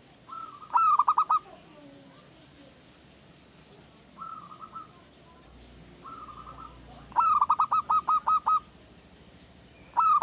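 Male zebra dove (perkutut) singing its cooing song: loud bouts of rapid staccato notes, with softer, shorter bouts in between. It is a newly kept bird that has just started singing regularly.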